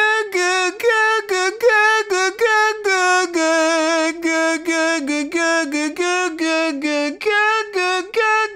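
A man singing a vocal exercise high in chest-mix voice, repeating a short "gug" syllable about three times a second on the chorus melody. The dark, narrow syllable keeps the voice thick and compressed so that it does not widen or push into a yell.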